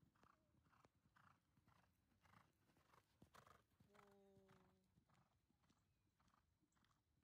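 Faint hoofbeats of a horse cantering on a sand arena, in a steady rhythm about twice a second. About four seconds in there is a short held tone lasting under a second.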